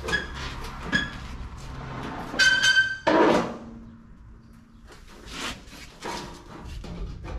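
Steel replacement quarter panel being handled and worked into place on a car body: sheet-metal knocks with brief metallic ringing, a short high squeal about two and a half seconds in, then a loud knock, and quieter knocks after it.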